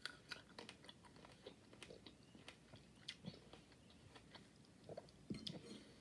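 Faint chewing of a cherry tomato: a string of small, irregular mouth clicks and smacks, with a slightly louder cluster about five seconds in.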